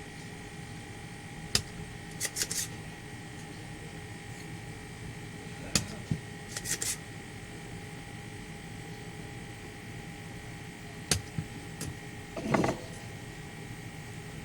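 Scattered sharp clicks and taps of tools working on a speaker amplifier board while its volume potentiometer is taken out, with a longer scraping rustle near the end. A steady electrical hum runs underneath.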